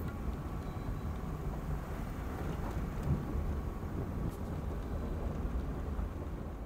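Steady low rumble of a vehicle driving along a dirt road, tyre and road noise with no clear engine note.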